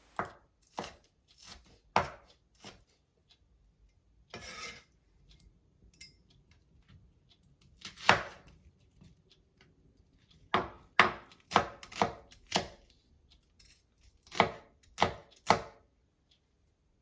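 Kitchen knife cutting spring onion on a chopping board: single sharp strikes at uneven intervals, bunched in quick groups around the middle and near the end, with one short scrape about four seconds in.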